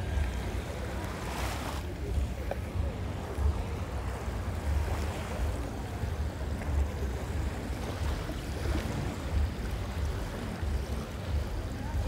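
Beach ambience: wind rumbling on the microphone over the wash of gentle surf, with faint voices of people on the beach.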